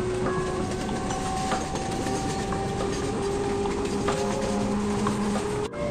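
A train running on the rails: a steady rumble with several thin tones that shift in pitch and scattered faint ticks. The sound drops out briefly near the end.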